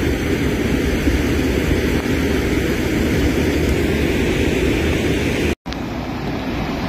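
Wind buffeting the microphone: a steady, loud, low rumble. It drops out for an instant about five and a half seconds in and then carries on.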